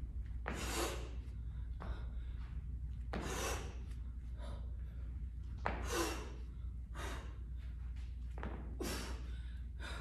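Hard breathing of a person exercising at full effort: forceful, noisy exhales about every two and a half seconds, with weaker breaths in between, while swinging a dumbbell.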